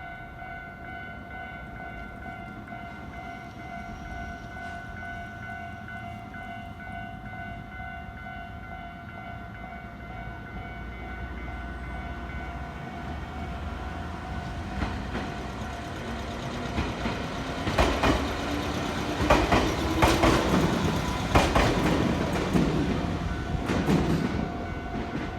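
Japanese level-crossing alarm ringing steadily as a train approaches and runs over the crossing. The train grows louder from about halfway through, with a rising then wavering whine and wheels clacking over the rail joints in its last few seconds.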